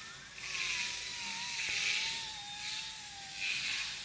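Electric motor and rotors of a small gyro-stabilised RC toy helicopter spinning up at one-button takeoff and hovering. Its whine rises at the start, then holds near one pitch with a slight waver, and swelling whooshes come and go.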